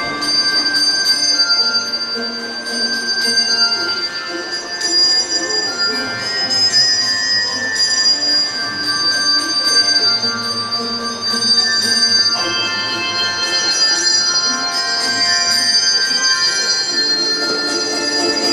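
Handbell choir playing a piece of music: many tuned handbells ringing in chords, their notes sustaining and overlapping as new ones are struck.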